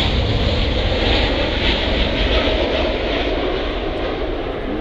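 Boeing 787 Dreamliner's jet engines at takeoff power on departure: loud, steady jet noise that eases slightly toward the end as the aircraft climbs away.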